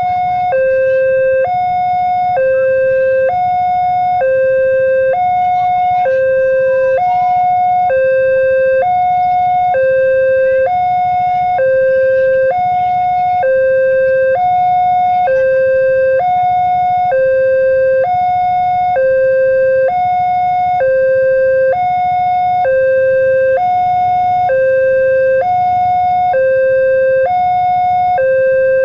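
Railway level-crossing warning alarm sounding a continuous electronic two-tone, alternating between a low and a higher note, each held about half a second. It signals that the crossing is closed for an approaching train.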